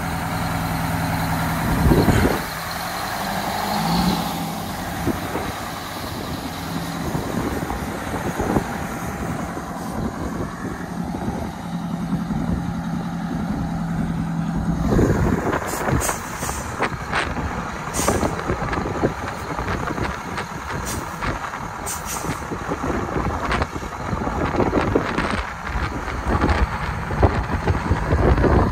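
Oshkosh FA-series truck's two-stroke Detroit Diesel engine running as the truck is driven down off a lowboy trailer, steady at first and louder and rougher from about halfway through. Several short sharp hisses or clicks come in the second half.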